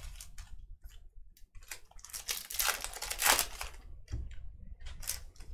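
Trading card pack wrappers crinkling and tearing as packs are opened by hand, in irregular bursts, busiest about halfway through.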